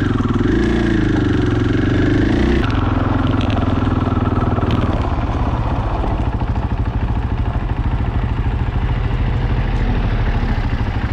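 Motorcycle engine running while being ridden. Its pitch rises and falls over the first few seconds, then drops at about three seconds in and settles to a steady, lower running.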